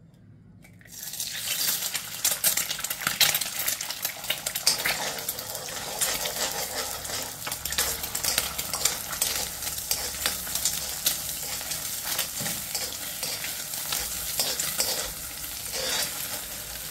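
Egg frying in hot oil in an iron kadai, sizzling steadily from about a second in, while a steel spoon is stirred through it, scraping and clicking against the pan as the egg is scrambled.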